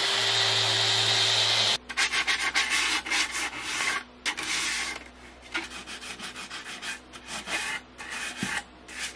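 A random orbital sander runs steadily on plywood and stops abruptly about two seconds in. Then sandpaper is rubbed back and forth along the edge of a plywood panel by hand in quick repeated strokes, loud at first and softer later.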